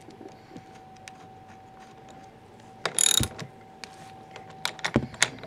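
Socket wrench ratcheting as it tightens a ground wire's ring terminal onto a battery's negative post: scattered small metal clicks, a short, loud run of ratcheting about three seconds in, and a few sharper clicks near the end.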